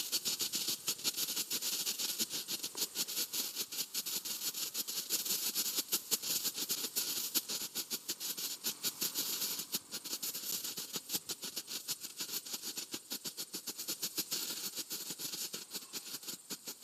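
Pyrotechnic strobe burning on the ground, giving a rapid, irregular crackle of small pops, one with each flash, over a steady hiss.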